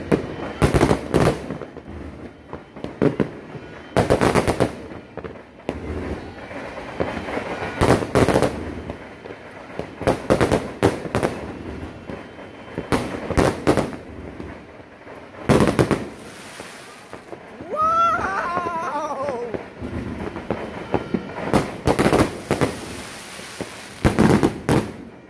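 Fireworks going off in a string of loud bangs, about ten over the span, with crackling between them. A brief wavering whistle-like tone comes about three quarters of the way through.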